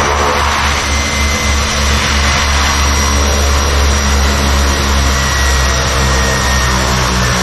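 Small turboprop passenger plane's engines running loud and steady, a deep drone with a steady high whine over it.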